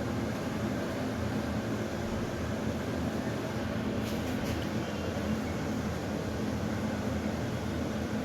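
A steady machine hum at an even level, with a couple of faint clicks about four seconds in.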